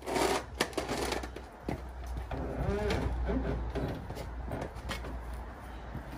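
Irregular clicking, knocking and rattling while the door trim panel of a Toyota Starlet is unbolted and unclipped, over a steady low hum.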